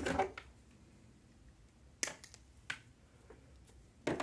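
Wire cutters snipping jumper leads: sharp snips about two seconds in, again a moment later, and near the end, after a brief handling noise at the start.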